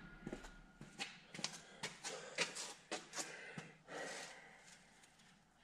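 Faint, irregular handling noise from someone working with a rope and metal parts: about a dozen light clicks and taps, with a longer soft rustle about four seconds in.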